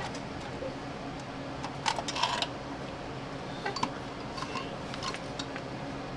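Scattered light metal clinks and taps, a few short knocks over several seconds, as metal parts and hand tools are handled while a replacement catalytic converter and its heat shield are fitted.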